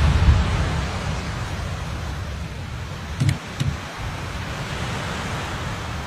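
Aerial shell fireworks: the low rumble of a shell burst fades out in the first second, leaving a steady noisy hiss, with two small pops a little after three seconds in.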